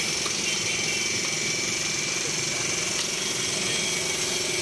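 Electric juice blender motor running steadily with an even, continuous hum.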